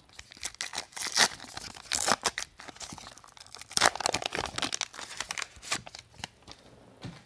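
Foil wrapper of a 1990-91 Upper Deck hockey card pack being torn open and crinkled by hand: a run of irregular crackles and rips that thins out near the end as the cards are pulled free.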